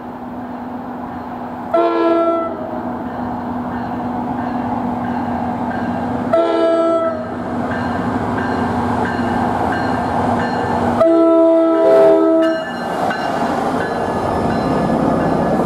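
PL42AC diesel locomotive approaching and passing at close range, sounding its K5LA chord air horn three times, the third blast the longest. Between blasts the engine's steady drone and the rumble of the train grow louder as it nears.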